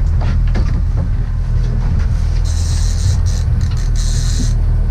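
Outboard motor of a trolling salmon boat running steadily with a low rumble. From about two and a half seconds in come three short bursts of high hiss.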